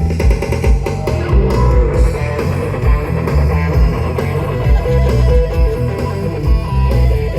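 A live band playing an instrumental passage: guitars over bass and drums with a steady beat, with no vocals.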